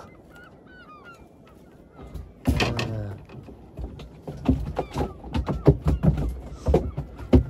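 Gulls calling: a string of short calls, then a louder, longer call about two and a half seconds in. After it come irregular knocks and clicks from the rod and the spinning reel being wound.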